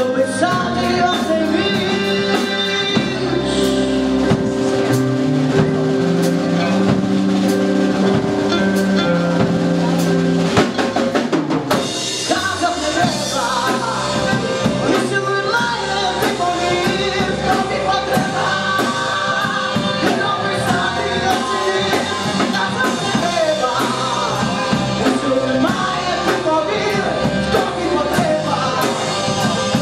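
Live band music: accordion and drum kit playing, with a woman singing. Held accordion chords and drum hits give way about twelve seconds in to a busier, wavering melody line.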